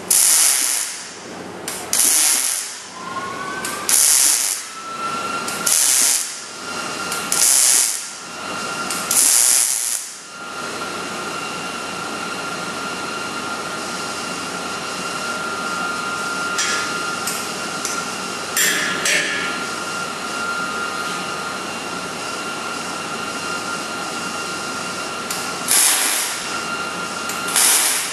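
MIG welder laying short stitch beads on a steel frame rail's cap-off plate: six short bursts of arc noise, each about a second long, in quick succession, then a long pause, then two more bursts near the end.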